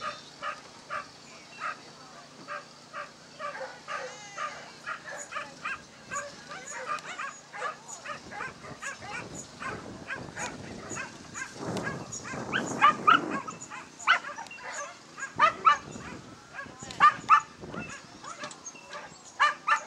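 A dog yelping and yipping in a long, rapid run of short high calls, about two a second, the excited yelping of a dog keyed up by the chase. The yelps grow louder around the middle and again near the end.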